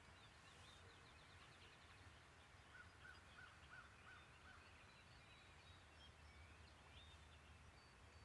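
Faint wild turkey hen yelping: a run of five short, evenly spaced yelps a few seconds in, with faint higher bird chirps around it.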